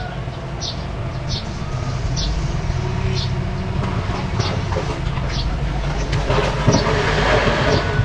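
Diesel engines of a mini bulldozer and dump trucks running steadily, with a short high sound repeating about every two-thirds of a second. A rushing noise swells over the last two seconds.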